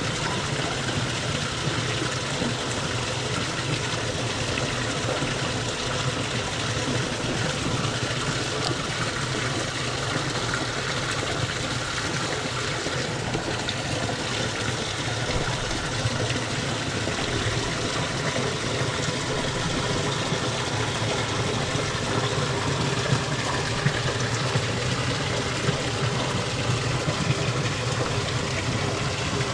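Water running steadily in a small irrigation channel, a constant even rush, with a few light ticks near the end.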